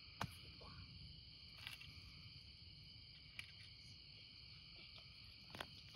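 Faint, steady, high-pitched chorus of night insects, with a few short faint clicks.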